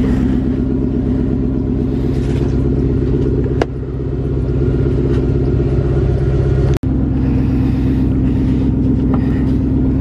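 Chrysler 300C's 5.7-litre Hemi V8 idling steadily shortly after a cold start, a loud low drone. The sound drops out for an instant about two-thirds of the way through.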